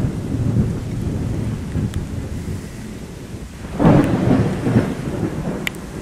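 Thunder rumbling over a heavy downpour of rain. The rumble eases about three seconds in, then a louder peal of thunder breaks in just before four seconds.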